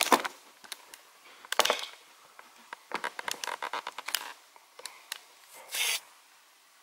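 Handling noise: scattered clicks and taps, a quick run of small clicks about three to four seconds in, and a short scrape near the end.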